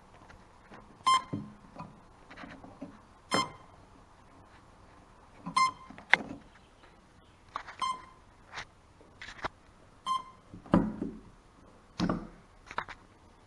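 Eachine Falcon 250 quadcopter beeping with short, even electronic beeps about every two seconds while its motors fail to start. Between the beeps there are clicks and a few louder knocks from the drone being handled.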